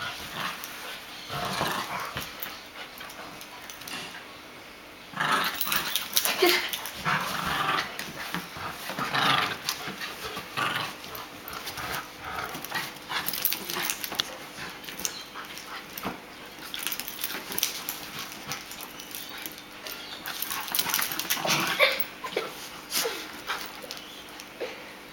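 A Jack Russell terrier and a golden retriever play-fighting in a tug-of-war over a soft toy, growling in irregular bursts with short lulls, the busiest stretch starting about five seconds in.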